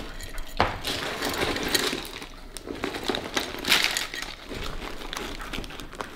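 Loose coins clinking and plastic snack wrappers crinkling as a handbag is rummaged for spare change, a run of irregular clicks and rustles.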